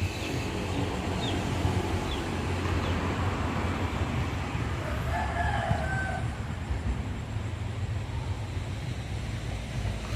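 A rooster crowing briefly about five seconds in, over a steady low rumble, with a few short falling high chirps in the first three seconds.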